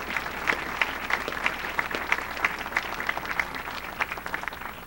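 An audience of a roomful of people applauding, a dense patter of many hands clapping that thins slightly near the end.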